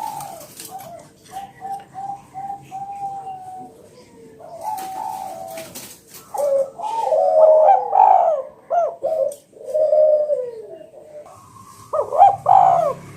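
Spotted doves (tekukur) cooing: a quick run of short repeated coos and a drawn-out note, then from about six seconds in louder, overlapping rolling coos, with another loud burst of cooing near the end.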